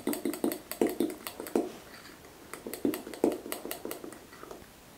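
Metal utensil clicking against the inside of a glass tumbler while stirring egg and flour into a thick batter, a few strikes a second. The strikes pause briefly in the middle and thin out near the end.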